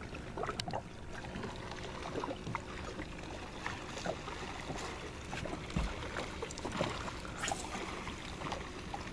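Water lapping and splashing against the hull of a small skiff drifting on calm sea, with scattered small splashes and a low rumble of wind on the microphone.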